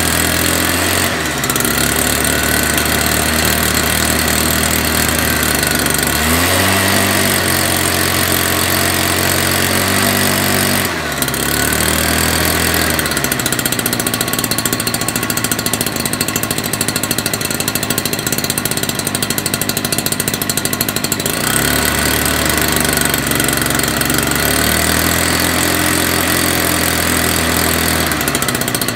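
STIHL backpack mist blower's two-stroke engine running while the throttle is moved up and down. It idles at first and picks up speed about six seconds in. From about a third of the way in to about three quarters of the way through it runs at full speed, with the blower fan's air rush covering the engine note, then it drops back to a lower speed and rises briefly again near the end.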